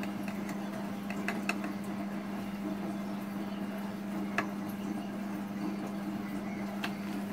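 Needlefish being pressed into a flour coating on a ceramic plate: a few faint clicks and taps against the plate, over a steady low hum.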